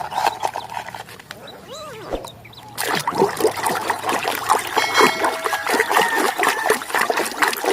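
Water splashing and trickling as a mud-caked toy vehicle is washed and scrubbed. It is quieter at first and becomes loud and busy with wet splashes from about three seconds in.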